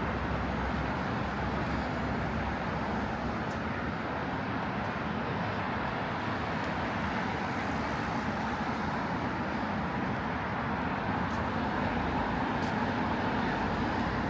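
Steady road traffic on a busy city street: the continuous noise of passing cars, with a few faint clicks.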